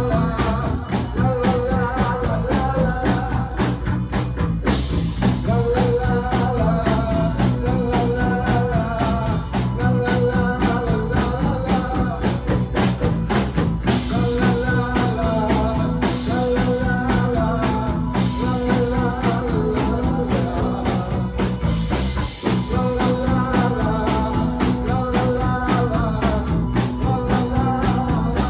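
A rock band playing live, loud and steady: pulsing bass, a fast drum kit beat and wavering lead melody lines over the top, with some singing.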